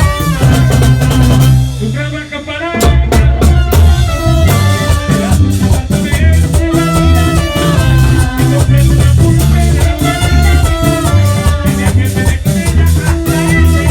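Vallenato music: an accordion playing the melody over bass and drums. About two seconds in the bass and drums break off briefly, and the full band comes back in just before three seconds.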